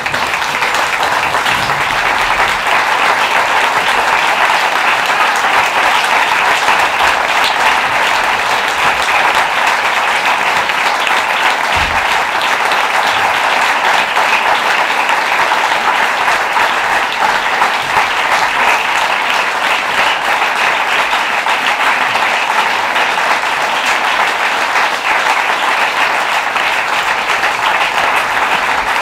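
Audience applauding: dense, steady clapping of many hands that breaks out suddenly and keeps on without letting up.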